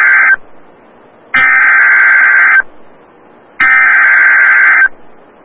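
Emergency Alert System SAME header: harsh digital data buzzes, each about a second long with a second of quiet between. The tail end of one burst is followed by two complete bursts, the coded header that opens a new EAS alert.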